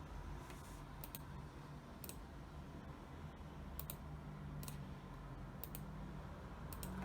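Computer keyboard keys clicking in slow, scattered keystrokes, roughly one a second and now and then two close together, over a low steady hum.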